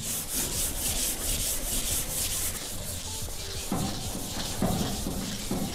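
Hand block-sanding of dried primer on a sheet-metal excavator body panel with 320-grit paper on a long sanding block, in quick, even back-and-forth strokes. This is the step that flattens the primer before paint.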